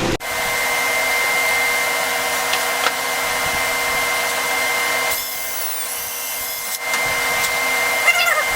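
Electric motor running steadily with a constant high whine, easing off for a moment about five seconds in and then coming back.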